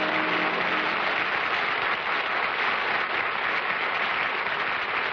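Studio audience applauding steadily, with the last notes of the opening theme music fading out in the first moments.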